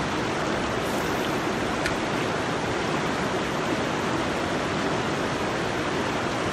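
Fast-flowing mountain river rushing steadily over rocks and boulders.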